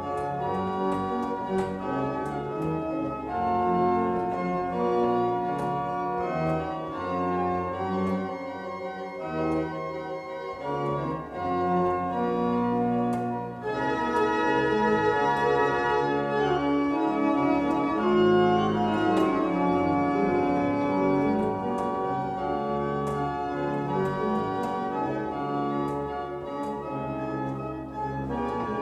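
Church pipe organ playing an improvisation on an Advent hymn: sustained chords with moving inner lines. About halfway through the sound dips briefly, then comes back fuller and brighter.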